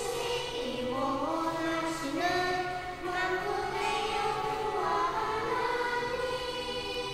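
Two young girls singing a Korean praise song, their voices rising and falling in a simple melody.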